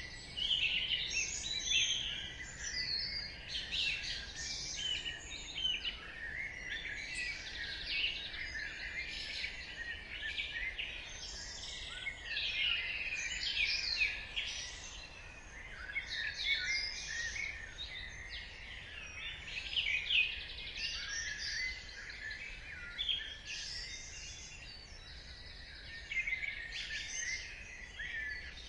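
Dawn chorus: many small songbirds singing and chirping at once, overlapping trills and short high calls with no break.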